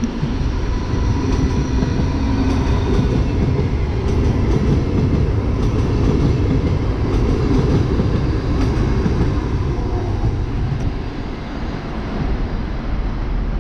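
ES1 'Lastochka' (Siemens Desiro RUS) electric multiple unit passing close by, its wheels rolling on the rails with scattered clicks. The sound stays loud while the cars go past and eases off in the last few seconds as the train moves away.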